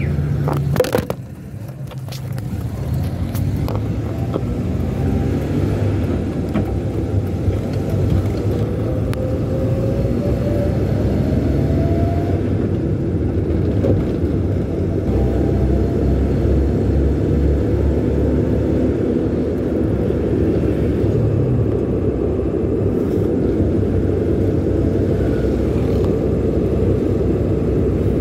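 Car engine and road noise heard from inside the cabin: a steady low rumble. A few sharp clicks come about a second in, then the sound builds and the engine note rises as the car pulls away and gathers speed, settling into a steady cruise.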